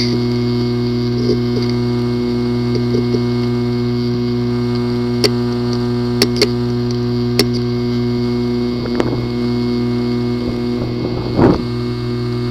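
Hard drive with a physically damaged disk assembly running with a steady hum and irregular sharp clicks: a few single clicks around the middle and a louder knock near the end, typical of a clicking drive that no computer can access.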